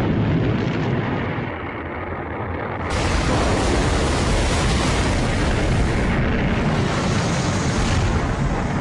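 Loud, steady roaring rumble of a rocket launch or rocket explosion on archival film, turning brighter and slightly louder about three seconds in.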